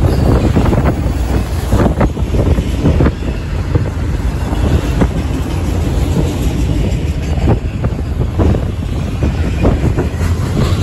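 Autorack freight cars rolling past close by: a steady rumble of steel wheels on rail, with irregular clacks as the wheels pass over the track.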